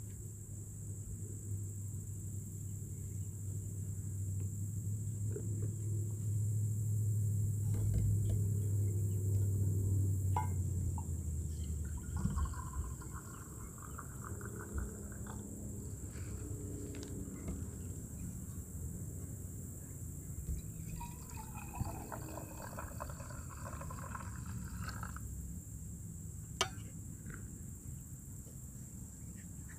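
Coffee poured from a glass French press into an enamel mug in two spells of a few seconds, the second rising in pitch as the mug fills. There are a few light knocks of handling, and a low rumble in the first ten seconds or so.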